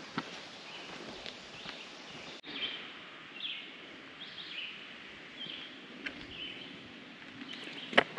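A few footsteps on a woodland trail, then, after an abrupt break about two and a half seconds in, a bird calling over and over: a short call roughly once a second. A sharp click comes near the end.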